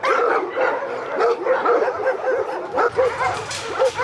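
Many kennelled shelter dogs barking and yelping at once, a dense chorus of short, overlapping barks.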